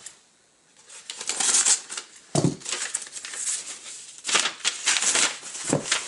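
Paper mailing envelope rustling and crinkling as a cardboard-wrapped comic is pulled out and handled, with two soft thumps, about two seconds in and near the end.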